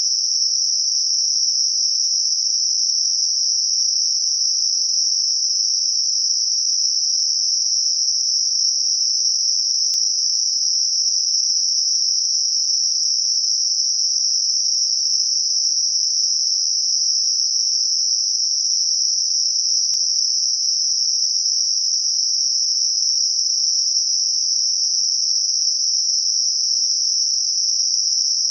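Synthetic Gaussian narrow-band noise centred on 5.5 kHz: a steady, high-pitched hiss that holds the same level throughout, with no low sound beneath it. It is a tinnitus masker meant to cover ringing or hissing centred around 5.5 kHz.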